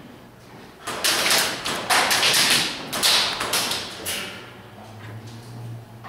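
Airsoft guns firing in several loud, sharp bursts between about one and four seconds in, quieter after.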